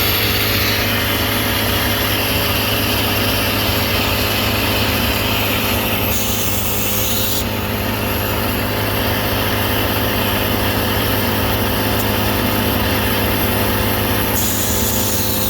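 Electric air compressor running steadily with a constant hum, its reed valves freshly resealed with flat reeds cut from a feeler gauge.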